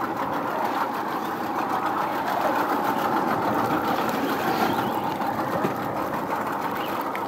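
Yamaha 70 outboard motor running steadily, with the boat manoeuvring to back up on a hooked fish.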